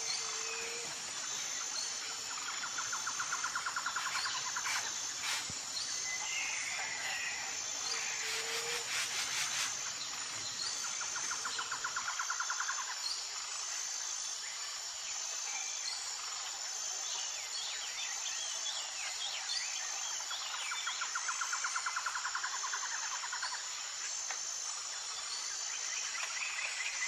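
Insects chirping steadily in a high, even pulse, with scattered short bird calls. A lower trill comes three times, each lasting a few seconds.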